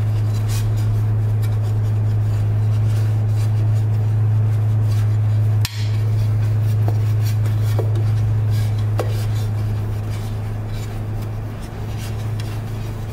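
A steady low hum under faint rubbing of a microfiber cloth wiping a glass build plate, with a few light clicks and taps of the glass. The hum drops out for an instant just before halfway.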